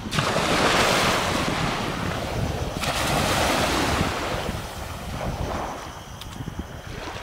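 Shallow surf washing up and back over wet sand in two surges, easing off over the last couple of seconds, with wind rumbling on the microphone.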